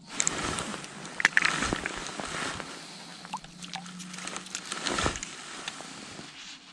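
Close rustling and crackling of a winter jacket and gear being handled right against the camera, with many sharp little clicks, as the angler moves to bring a fish up through the ice hole.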